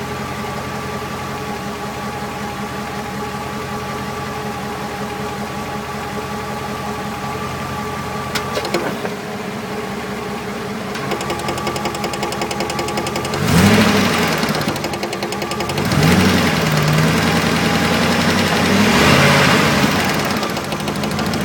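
1999 Dodge Dakota's 5.2-litre V8 running with a knocking noise, which the owner takes to come from the automatic transmission and which appears only in neutral and drive. The engine idles steadily at first, its note changes about halfway through, and it then revs up and back down three times.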